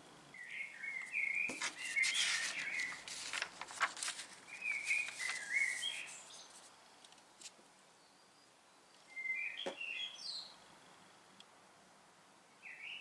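Small birds chirping in several short phrases, the last just before ten seconds in, over a faint background hiss. In the first few seconds the paper pages of a booklet rustle as they are turned, and there are a couple of light taps.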